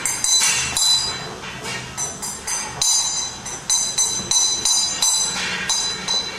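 Improvised metal percussion: quick, irregular strikes, about three a second, on small metal that rings high, over a faint low drone.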